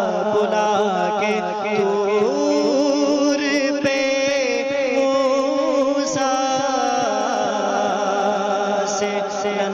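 Urdu devotional naat being sung, with long drawn-out, gliding melodic notes over a steady drone.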